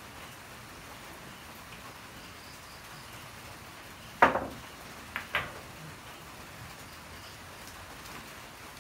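A pool cue tip striking the cue ball with a sharp click about four seconds in, followed about a second later by two lighter clicks of billiard balls knocking together.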